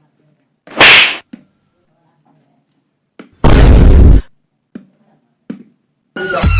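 Cartoon sound effects: a short, sharp, hissy hit about a second in, then a longer, deeper burst like an explosion about half a second long, with a few small clicks between. Electronic music starts near the end.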